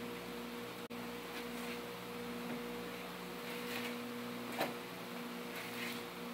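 Spoon stirring cake batter in a mixing bowl, with soft scattered scrapes against the bowl and one sharper click about four and a half seconds in, over a steady electrical hum.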